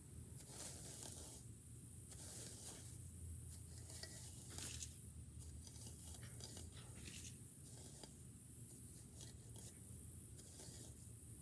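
Faint, irregular scratchy rustles of a small three-tine hand cultivator raking through lawn grass and dry leaves.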